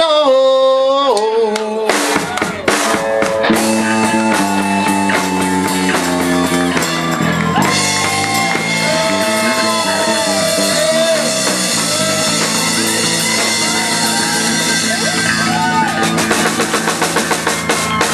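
Live blues-rock band playing with drum kit, electric guitars, bass and keyboards. A held note bends at the start, the full band with drums comes in about two seconds in, and cymbals wash over the music from about eight seconds on.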